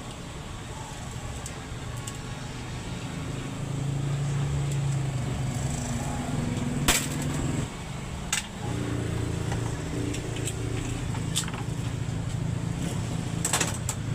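Isuzu 10PC1 truck diesel engine running with a steady low hum. It gets louder about three and a half seconds in, dips briefly twice around the middle, then settles. A few sharp clanks are heard over it.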